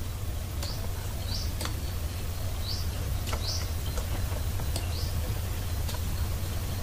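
Short high chirps, about one a second, like a small bird's, over a steady low hum and hiss. A few faint clicks come in between.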